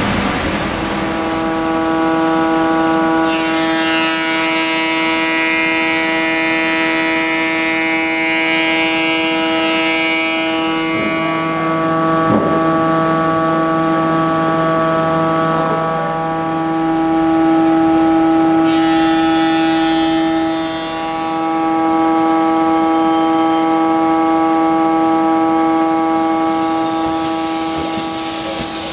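A loud, steady droning tone with many overtones, held almost unbroken, with a brief dip about three quarters of the way through.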